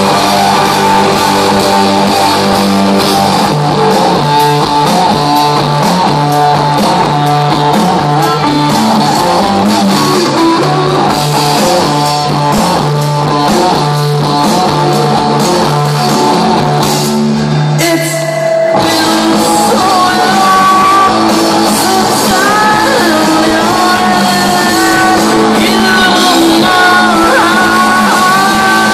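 Psychedelic rock band playing live through a festival PA, heard from within the crowd: electric guitars, bass, drums and sung vocals. About eighteen seconds in the bass drops out for a moment before the band comes back in with the vocal line.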